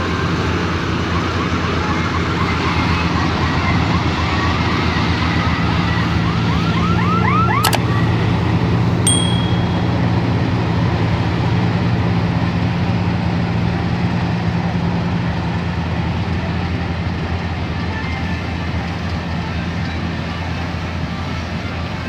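Combine harvester running steadily in wheat: a loud, even drone of engine and machinery. Over the first seven seconds or so a fast train of short rising chirps runs on top, ending in a sharp click.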